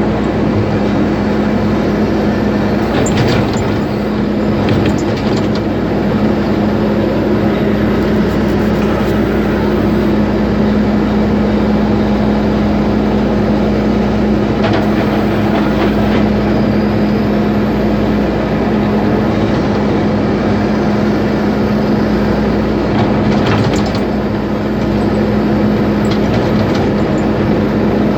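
Heavy machinery crushing concrete: a machine running steadily with a constant low hum, and short cracks and clatters of breaking concrete at irregular intervals.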